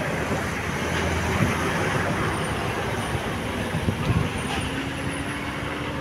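Road traffic noise: the steady rush of passing vehicles' engines and tyres. A low engine hum rises slightly in pitch in the second half.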